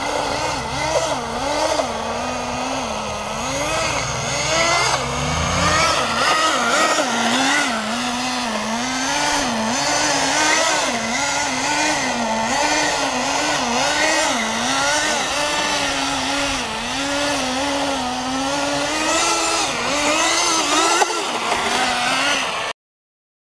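Small glow-fuel (nitro) engine of an RC snowmobile, revving up and down again and again as the sled is driven over snow. It cuts off abruptly near the end.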